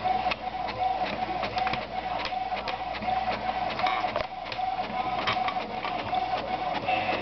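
Printer running through a copy: a steady mechanical whine that pulses rapidly, with many small clicks from the mechanism.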